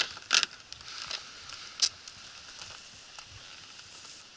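A recovered cast net being handled on a wooden dock: a few sharp rustles and knocks of the mesh and its lead weights against the boards, the loudest about half a second in and another near two seconds, with small crackles between.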